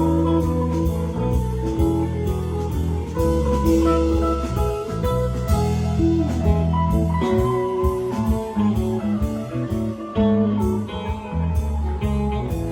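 Live band playing an instrumental passage: guitar lines over bass and drum kit, with steady evenly spaced cymbal and drum beats.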